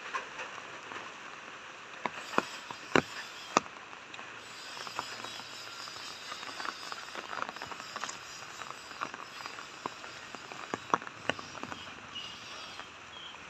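Rain falling with a steady hiss, with scattered sharp taps on top, a few louder ones around three seconds in.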